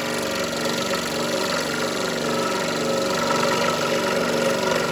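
Electric scroll saw running steadily, its up-and-down blade cutting into a small wooden board as it is fed in slowly.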